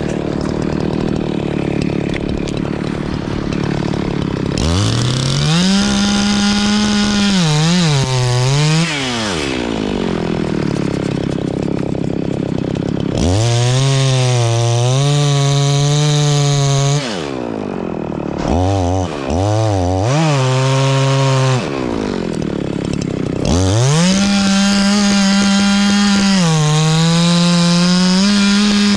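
Chainsaw cutting pine wood. After a few seconds running low and quietly, it goes to full throttle three times in long cuts, with short blips between the second and third. Within each cut the pitch sags as the chain bites into the wood and rises again as it frees.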